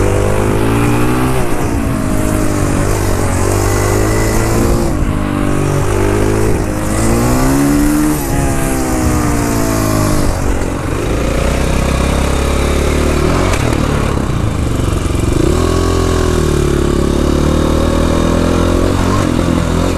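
KTM 500 EXC single-cylinder four-stroke engine being ridden, its pitch rising and falling again and again with the throttle, over a steady rush of wind.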